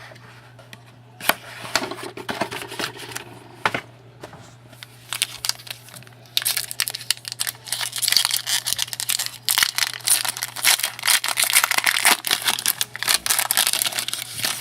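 Plastic wrapping crinkling and tearing as a sealed hockey card box is opened, dense and continuous in the second half. A few separate clicks and taps come in the first seconds, over a steady low hum.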